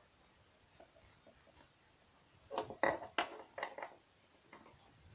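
A few light taps of small plastic toy figures being set down on a tabletop, clustered about two and a half to four seconds in.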